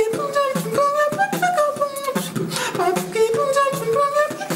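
Beatboxing: mouth-made drum strokes in a steady rhythm, with a sustained vocal melody line that steps between notes over it.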